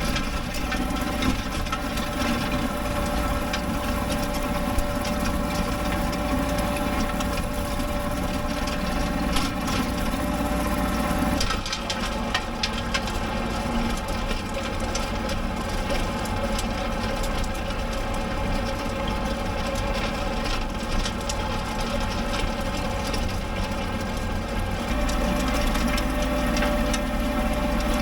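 Kubota B7500 compact diesel tractor running steadily while working the ground with a 5-foot rotary tiller. Its tone changes abruptly about eleven seconds in.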